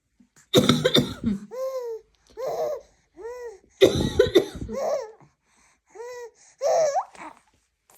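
A woman coughing in two short fits, about half a second in and again about four seconds in, while a baby answers with short high-pitched giggles and squeals between and after the coughs, about six in all.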